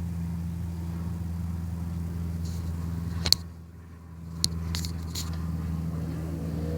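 Sharp metallic clicks of a wrench on the shock absorber's mounting-stud nuts: one loud click about three seconds in, then three lighter ones over the next two seconds, over a steady low hum.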